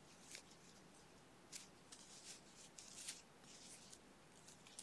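Faint, brief rustles of yarn being worked with a crochet hook while slip-stitching a seam, several scratchy strokes in a row over near silence.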